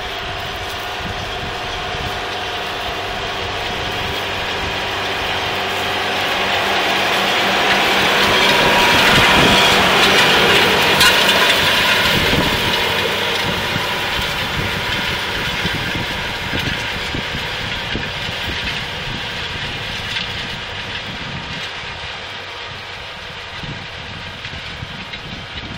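Tractor engine working under load as it pulls an Agromex MALT 2424 disc harrow, its discs cutting through soil and crop stubble. The sound grows louder as the rig passes close about ten seconds in, then fades as it moves away.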